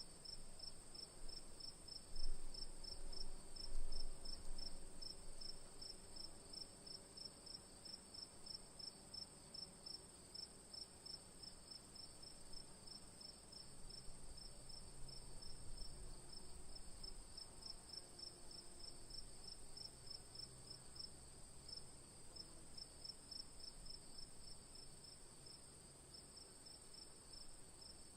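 Crickets chirping in an even, rapid pulse of about three chirps a second, over a continuous high insect trill. Two low bumps stand out about two and four seconds in.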